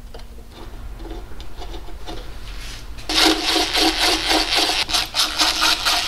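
Light scraping and clicks as a lifter cover and its bolts are set in place on an engine block, then a cordless driver starts about three seconds in, spinning a bolt down with a steady, buzzing run.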